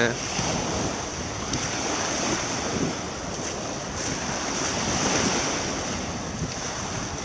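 Small waves lapping and washing up a sandy beach in slow swells, with wind on the microphone.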